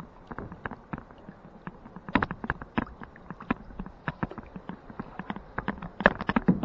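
Kayak paddling with the camera in hand: irregular knocks and clunks of the paddle against the plastic kayak hull, coming thickest about two seconds in and again near the end.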